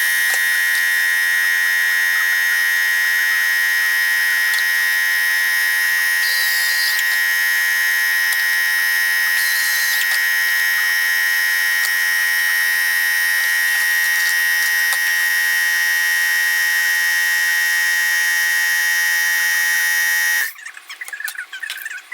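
A loud, steady, high-pitched buzzing tone that holds without a break and cuts off suddenly about twenty seconds in.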